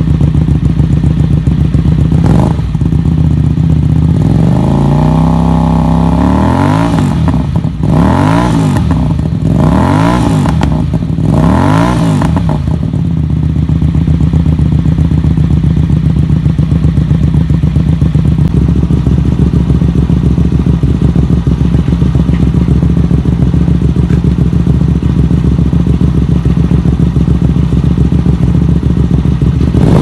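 Hyosung GT250R's 250 cc V-twin idling through a newly fitted aftermarket slip-on exhaust. About four seconds in it is revved up slowly, then blipped three times in quick succession, before settling back to a steady idle.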